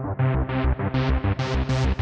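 Electronic dance music with a steady beat of about four pulses a second, growing steadily brighter as it builds.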